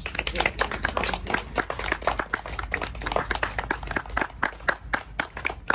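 A rapid, irregular run of sharp claps or taps, several a second, like hands clapping.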